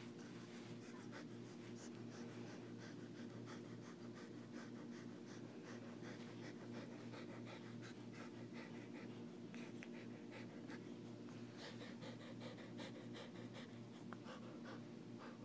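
Dog breathing and panting softly with many small irregular wet mouth clicks while its lip is held back, over a steady low hum.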